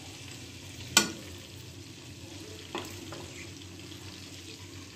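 Chicken pieces sizzling steadily as they fry in oil in a nonstick pot. A sharp clack about a second in, and a softer one near three seconds.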